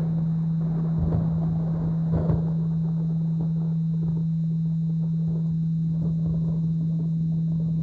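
A steady 165 Hz binaural-beat tone humming over a rain-and-thunder soundscape, with low rumbles of thunder swelling about one and two seconds in.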